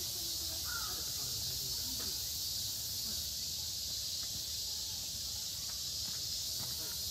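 A steady high-pitched insect chorus runs without a break. Faint short calls and distant voices sit underneath it.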